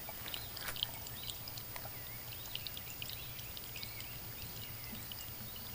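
Water poured from a watering can trickling through a small funnel into a buried clay olla, gurgling with many short high blips as it fills.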